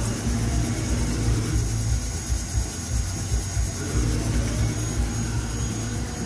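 Industrial CNC lathe machining with flood coolant: a steady low machine hum with a hiss and a faint steady high whine.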